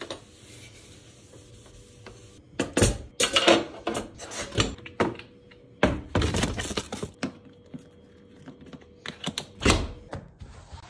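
Household handling noise in a kitchen: clusters of knocks and clatter as cupboard doors and things inside are moved about. The last cluster comes near the end, as the dishwasher door is pulled open.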